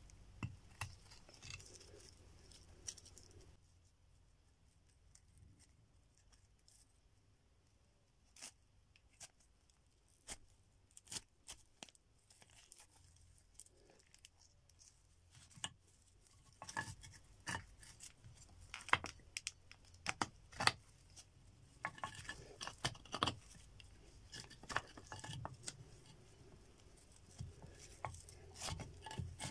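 Twisted fibre cord being wound and cinched tight around a bone blade by hand: irregular small rasps, creaks and clicks of rough cord rubbing on itself and on the bone, sparse at first and busier in the second half.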